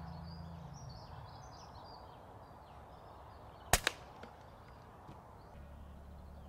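A single shot from an Air Arms Ultimate Sporter pre-charged air rifle about four seconds in: a sharp crack, then a second, quieter crack a fraction of a second later. It is the shot that knocks a grey squirrel off a feeder in a clean kill. Faint birdsong behind.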